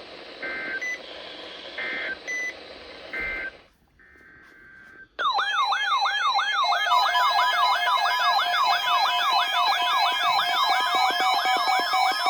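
Three short two-pitch data bursts over a hiss, the end-of-message tones that close an Emergency Alert System broadcast. About five seconds in, a loud, rapidly warbling alert tone starts, with steady tones joining it, as the attention signal for the next alert.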